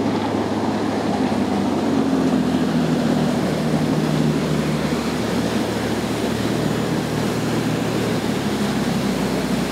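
Engines of a large sportfishing boat running at speed, a steady low drone, over the rush of its hull and bow spray through the water.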